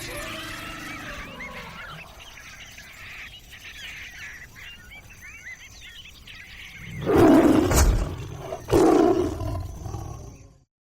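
Wild animal sounds: faint chirping bird calls, then two loud roars about seven seconds in, falling away to silence just before the end.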